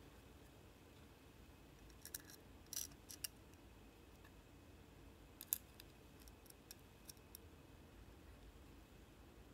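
Light clicks and ticks of a small circuit board with brass standoffs being handled. A cluster of clicks comes about two to three seconds in, the sharpest about five and a half seconds in, then a few fainter ticks, with near silence between them.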